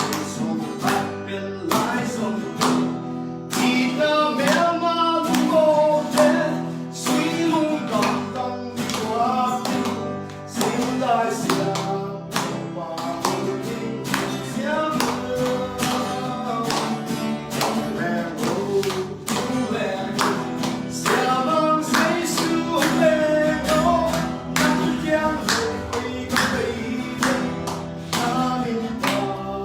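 Worship song: a voice singing over a plucked or strummed guitar.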